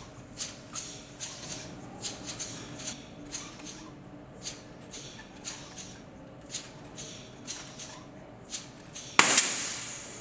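LEGO pneumatic cylinder engine, run on nitrogen gas boiling off from liquid nitrogen, puffing out its exhaust in short rhythmic hisses, about two to three a second, as it drives the walker. Near the end a loud sudden hiss of gas fades away over about a second.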